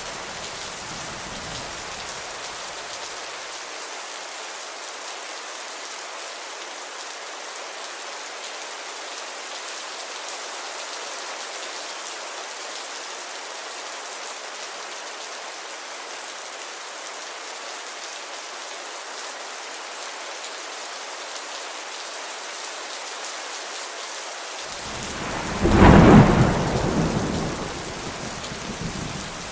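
Steady rainfall hissing, with a loud clap of thunder rumbling about three-quarters of the way through and dying away; a fainter rumble fades out in the first few seconds.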